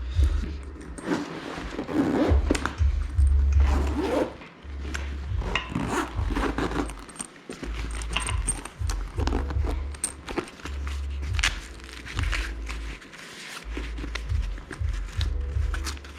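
Cables and gear being rummaged and handled: scraping, rustling and scattered clicks, with repeated bursts of low rumble.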